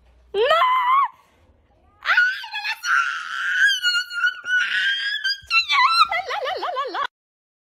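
A person screaming in a high-pitched voice: one short rising shriek, then a long shrill scream from about two seconds in that breaks into wavering, lower cries near the end.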